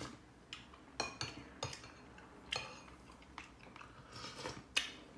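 Metal cutlery clinking and scraping against ceramic plates and bowls while eating, in about eight scattered sharp clinks.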